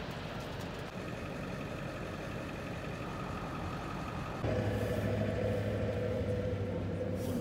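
Vehicle engine idling, a steady hum that steps up louder and deeper about four and a half seconds in.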